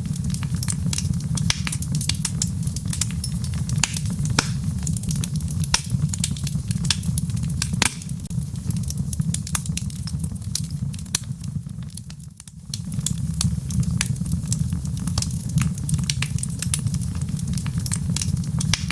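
Logs burning in a fireplace: a steady low rumble of flames with frequent sharp crackles and pops. The fire sound dips briefly about two-thirds of the way through.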